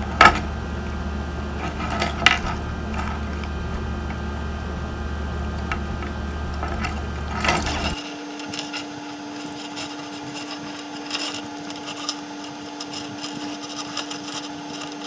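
Scattered sharp clicks and light scraping of a plastic remote-key case being twisted and pried open with a tool, over a steady low hum. The hum cuts out abruptly about eight seconds in, leaving a fainter steady tone under more small clicks.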